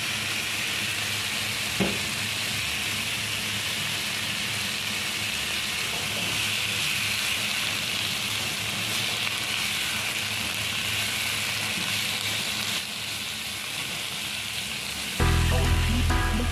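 Sliced bitter melon sizzling steadily in hot oil in a pan as it is stir-fried with a spatula, with a single light tap about two seconds in. Music with a heavy low beat comes in near the end.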